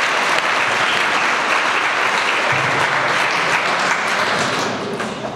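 Audience applause: dense, steady clapping from a large seated crowd, dying away near the end.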